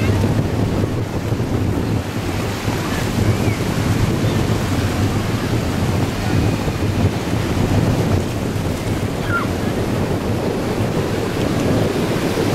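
Seaside beach ambience: a steady rush of wind on the microphone mixed with small waves washing in the shallows, with a faint short cry about nine seconds in.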